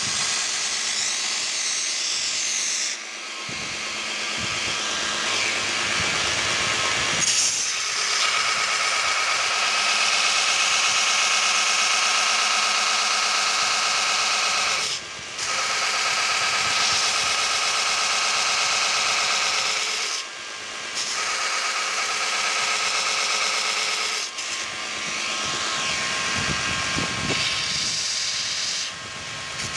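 Homemade belt grinder running, its abrasive belt grinding a steel cleaver blank held flat on the platen. A steady grinding hiss that breaks off briefly a few times.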